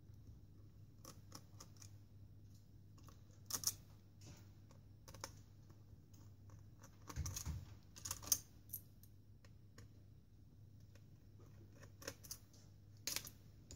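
Faint, scattered clicks and light taps of a small screwdriver and fingers working the screws of the hard drive frame in an opened Dell Latitude E7440 laptop. There are a handful of separate clicks, several seconds apart, over a low steady hum.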